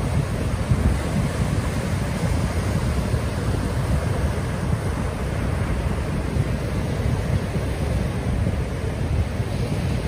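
Small ocean waves breaking and washing up onto a sandy beach: a steady rush of surf.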